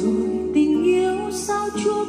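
A slow song playing through a JBL Authentics 500 speaker: a gliding melody line over acoustic guitar.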